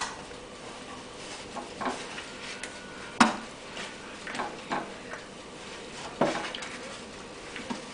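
Sharp knocks and taps on a wooden stool as a puppy and a kitten scuffle on its seat. The loudest knock comes about three seconds in and another about six seconds in, with lighter taps between.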